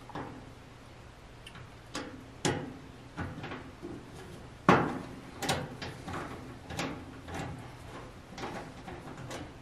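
Screwdriver and hands working the power-cord terminal block on the metal back panel of a Maytag electric dryer: scattered clicks and knocks as the terminal screws are turned and the wires handled, the sharpest about two and a half and nearly five seconds in.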